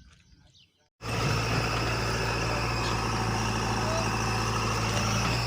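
Heavy diesel engine running steadily at idle, cutting in abruptly about a second in after near silence.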